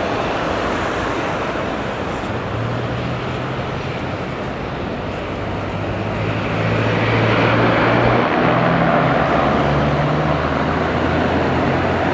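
A motor engine runs with a steady low hum over a wash of traffic noise, getting louder about six seconds in.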